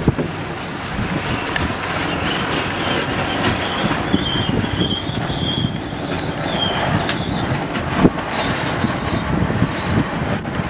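Wind buffeting the microphone over the steady rush of water aboard a sailboat under way. A string of short, high whistling squeaks runs through the middle, and there is one sharp knock near the end.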